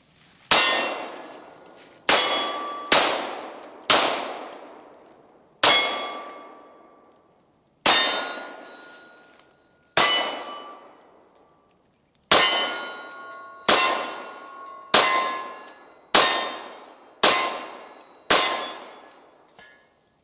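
H&K USP 9mm pistol firing about a dozen shots at an uneven pace, one to two seconds apart, each followed by the ring of struck steel targets that fades slowly.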